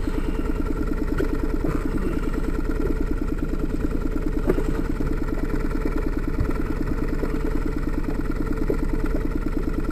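Small boat's outboard motor idling steadily, with a fast, even pulse and an unchanging level.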